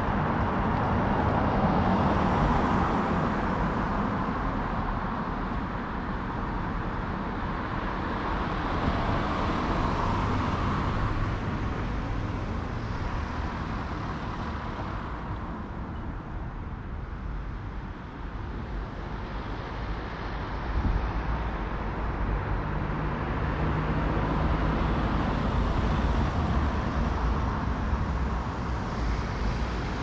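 Road traffic around a roundabout: vehicles passing one after another, the engine and tyre noise swelling and fading, with a brief lull about halfway through.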